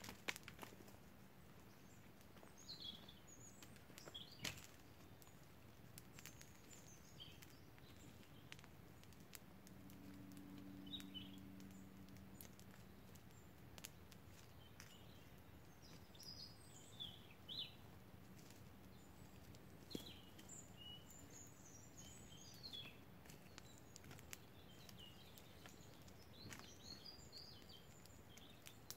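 Quiet forest ambience: small birds chirping on and off, a few sharp clicks or snaps, and a faint low hum for a couple of seconds near the middle.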